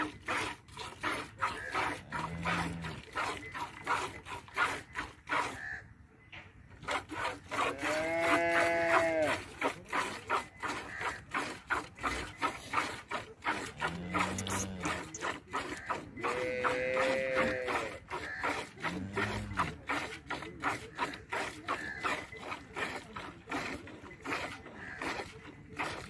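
Cow being hand-milked into a steel bucket: quick, rhythmic squirts of milk, about four a second. Cattle moo several times over it: short low moos and two longer, higher calls.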